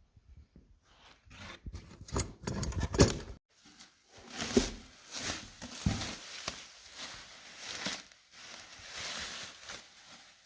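Engine parts and their wrapping being handled: a quick run of clicks and knocks, the loudest about three seconds in, then several seconds of rustling with small bumps.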